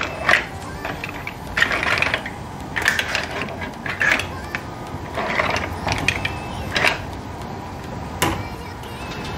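Opened green mussel shells clattering against each other and the pan as they are tossed with a utensil, in irregular bursts of clicks about a second apart.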